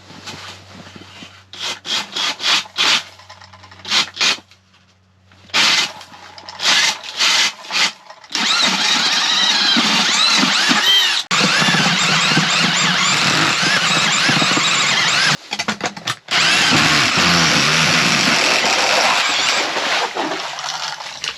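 Power ice auger boring a hole through about two feet of ice: several short bursts of the motor at first, then it runs continuously under load for about twelve seconds, cutting out briefly twice, before fading near the end as it breaks through.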